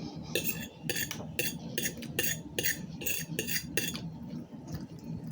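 Cutlery scraping and clinking against a dish in about ten quick, even strokes, close to three a second, that stop a little over a second before the end.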